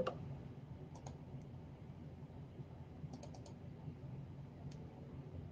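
Faint computer mouse clicks: one about a second in, a quick run of several around three seconds in, and one more near the end.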